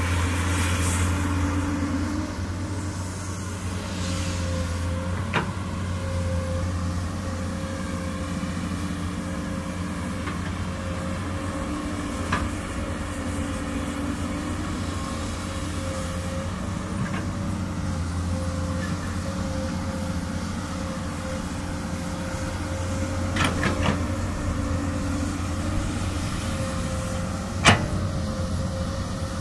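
Komatsu PC200 excavator's diesel engine running steadily, with a steady higher tone over the drone. A few sharp knocks come through at intervals, the loudest near the end.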